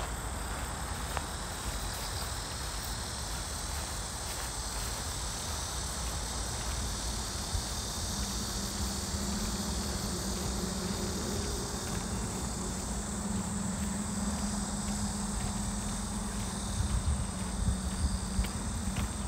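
A steady, high-pitched chorus of insects chirring. A low hum comes in about eight seconds in and fades near the end, and footsteps on a path start near the end.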